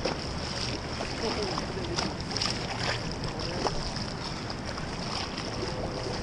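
Steady rush of a fast river current and wind on the microphone, with a few short clicks and knocks of handling near the middle.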